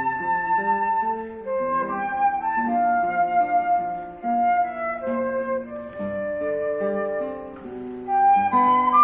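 Flute and classical guitar duo: the flute plays a slow melody of long held notes over a plucked guitar accompaniment.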